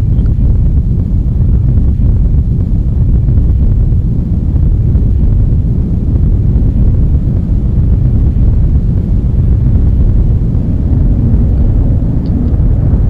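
Loud, steady low rumble without a clear pitch, holding evenly throughout, with a couple of faint high ticks near the end.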